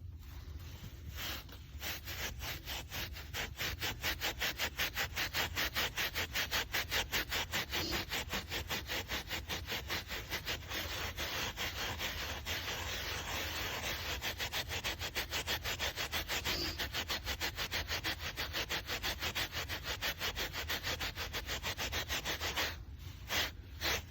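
Carpet scrubbed by hand with quick back-and-forth strokes, several a second, working the cleaner into a stain. The scrubbing stops near the end after a couple of last strokes.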